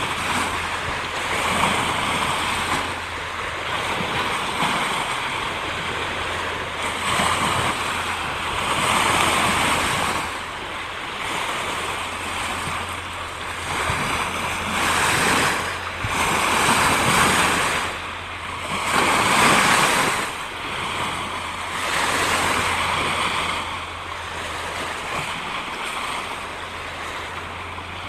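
Ocean waves washing in, a steady rush of surf that swells and fades every few seconds.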